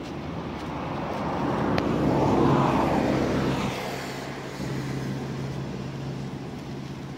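A motor vehicle passing by: a rushing engine and road noise that swells to a peak about two and a half seconds in and then fades, over a steady low hum.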